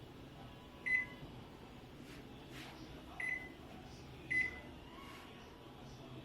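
Samsung CE73JD BXTL microwave oven beeping as buttons on its touch keypad are pressed to set power defrost: three short, high beeps, about a second in, just after three seconds and just after four seconds.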